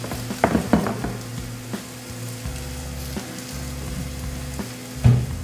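Rib-eye steak sizzling in a hot cast-iron grill pan with butter, a steady frying hiss over a low hum. A few louder sharp sounds come about half a second in and again near the end.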